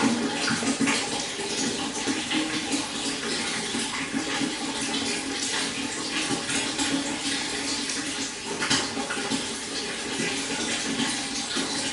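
Shallow stream water running steadily, with a continuous splashing and bubbling over stones.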